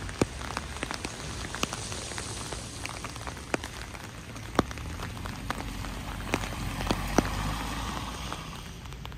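Rain falling steadily, with irregular sharp ticks of single drops striking a surface close by.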